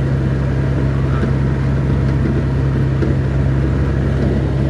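Steady engine drone and road noise heard from inside a moving vehicle's cab, a constant low hum with no change in pitch.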